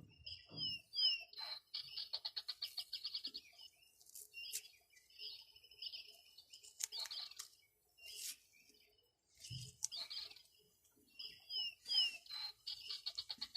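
A small songbird singing: a phrase of quick crossing up-and-down whistled slurs followed by a fast trill, heard about a second in and again near the end, with scattered short chirps between.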